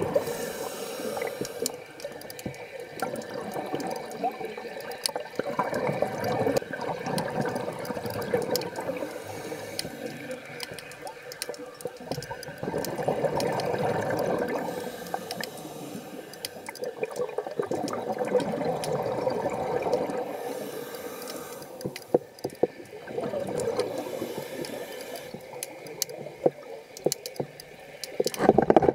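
Scuba diver breathing on a regulator underwater: exhaled bubbles rise in swells every five or six seconds, with scattered clicks in between.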